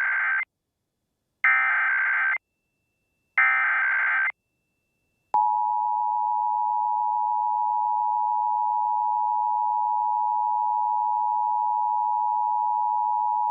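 Emergency Alert System SAME header: three bursts of warbling data tones about a second each, the first already under way. Then, about five seconds in, the EAS two-tone attention signal (853 and 960 Hz together) comes on and holds steady for about eight seconds, announcing a Required Monthly Test.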